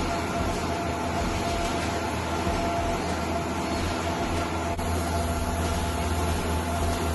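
Steel-mesh wire drawing, ribbing, straightening and cutting machine running steadily: a constant mechanical hum with a low drone and a few steady whining tones, and one light tick about two-thirds of the way through.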